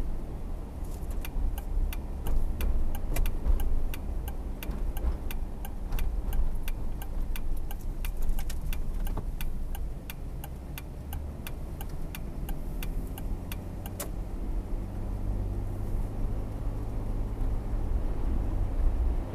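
Car interior with a steady low road and engine rumble. Over it, the turn-signal indicator clicks evenly about three times a second, starting about a second in and stopping about 14 seconds in. The rumble then grows a little stronger as the car pulls away.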